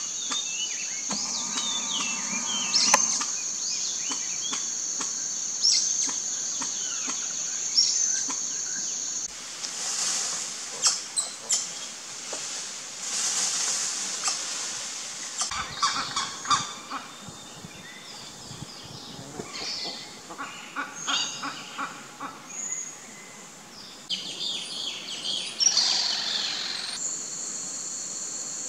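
Forest ambience: a steady high-pitched insect buzz with bird chirps and calls over it. The buzz stops for the middle stretch, which holds rustling and a run of sharp chirps and clicks, and comes back near the end.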